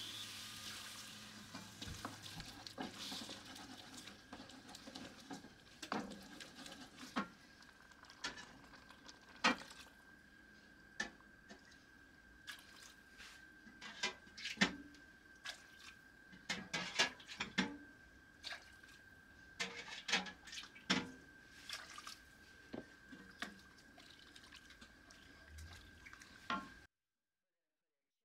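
Wooden spoon stirring and knocking against an enamelled Dutch oven as chicken broth is poured slowly into a flour roux, with liquid splashing and dripping between scattered light knocks. The sound cuts off abruptly near the end.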